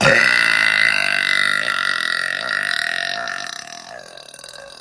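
One long, loud, pitched human burp, brought up after gulping Sprite. It starts suddenly, holds for about four seconds and fades away.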